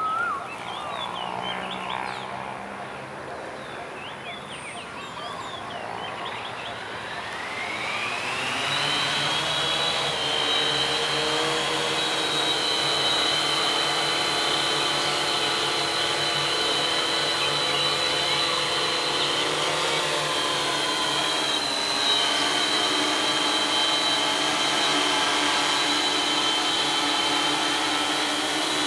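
Multirotor drone's electric motors and propellers spinning up with a rising whine about seven seconds in, then a steady high-pitched buzzing whine as it hovers; the pitch dips briefly and recovers about twenty seconds in. Birds chirp in the first few seconds.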